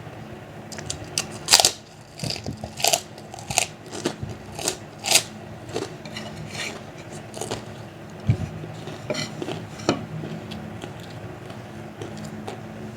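Crisp crunching of fried kerupuk crackers being bitten and chewed. There is a quick run of sharp crunches for the first few seconds, then sparser ones, over a faint steady low hum.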